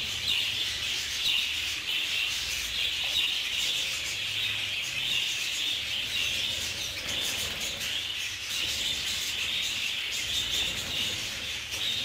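A flock of budgerigars chattering together: a steady, dense, high-pitched warble of many overlapping chirps.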